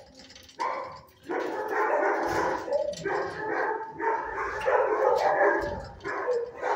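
Shelter dogs barking, starting about half a second in and going on almost without a break.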